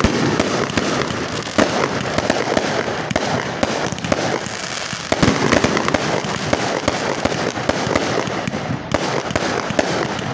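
Aerial fireworks display: many overlapping shell bursts with dense, continuous crackling and popping.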